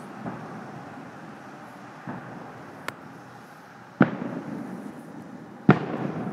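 Aerial fireworks shells bursting at a distance: a few smaller pops and cracks in the first three seconds, then two loud booms about four and five and a half seconds in, each trailing off in an echo.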